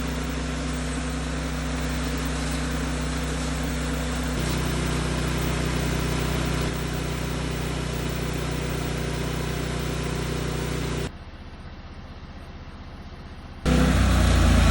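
Sawmill engine running steadily, with small steps in its note. It goes much quieter for a couple of seconds about eleven seconds in, then comes back louder.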